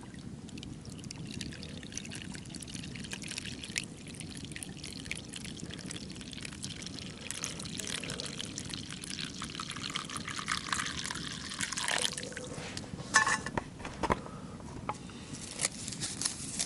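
Liquid pouring and trickling with a fine crackle. A few sharp, ringing metal clinks of cookware come near the end.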